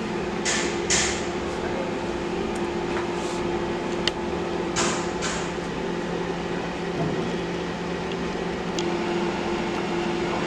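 Convection microwave oven running with a steady hum, overlaid by a few short rustling or scraping sounds and a sharp click about four seconds in.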